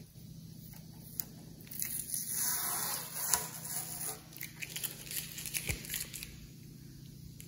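Masking tape being peeled and crinkled off a painted panel in bursts, with a steady low electrical hum underneath.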